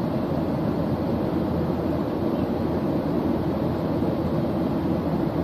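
Steady, even rumble of a jet airliner in flight, heard inside the cabin.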